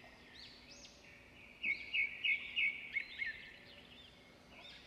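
Birds chirping: repeated short high whistled calls that rise and fall, with a run of about five quick, louder chirps from about one and a half to three seconds in.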